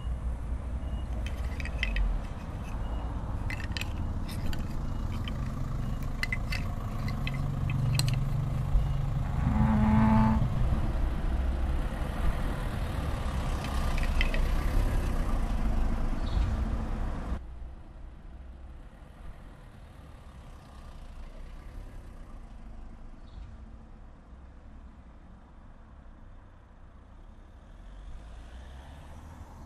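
Street background sound: a vehicle engine running close by, with scattered clicks and knocks. About seventeen seconds in it cuts off abruptly to a much quieter outdoor background.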